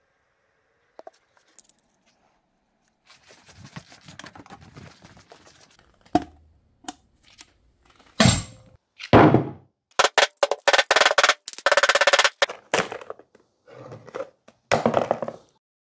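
Golf balls knocking and clattering together inside a clear plastic bucket as it is handled and tipped. After a few faint rattles come loud, sharp clacks and quick rattling runs through the second half.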